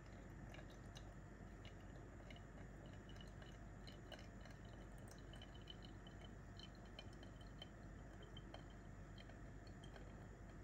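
Faint crackle of tiny bubbles popping in wet coffee grounds as hot water is poured slowly in a thin stream from a gooseneck kettle during a pour-over brew: many small irregular ticks over a low hiss.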